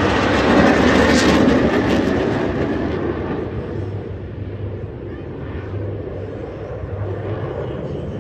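Jet engines of a formation of aerobatic display jets flying past: a broad roar, loudest over the first two or three seconds, then fading as the formation draws away.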